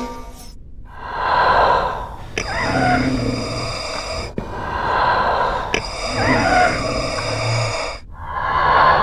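Slow, rhythmic mechanical breathing through a respirator: about five long, hissing breaths, alternating in and out, one to two seconds each.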